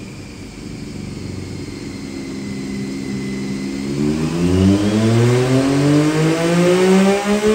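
Triumph Daytona 675's inline three-cylinder engine, breathing through Delkevic headers and a PipeWerx silencer, pulling in gear against a rolling-road dyno. It holds low revs at first, then from about four seconds in the pitch climbs steadily and it gets louder as the throttle opens for a power run.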